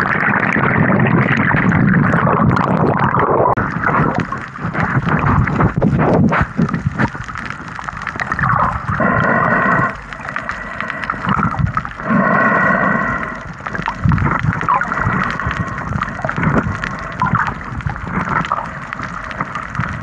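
Muffled gurgling and sloshing of water over a camera microphone held underwater while snorkeling, with scattered clicks and bubbling. Two short pitched hums come through near the middle, a few seconds apart.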